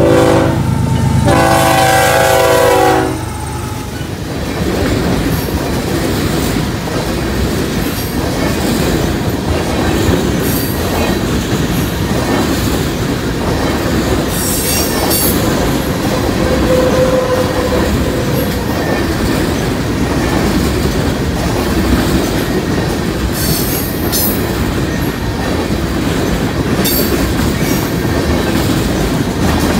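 Canadian National freight locomotive's air horn sounding a short blast and then a longer one, ending about three seconds in, its signal for the grade crossing. Then a long train of tank cars rolls past close by: a steady rumble and clatter of wheels on the rails, with brief high wheel squeals now and then.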